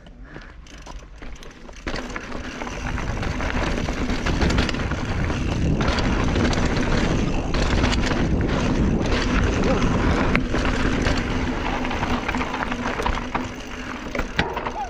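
Riding noise from a Trek Trance full-suspension mountain bike descending rocky dirt singletrack: wind rushing over the chest-mounted camera, tyres rolling over dirt and rock, and frequent clicks and knocks from the bike. It gets much louder about two seconds in and stays loud.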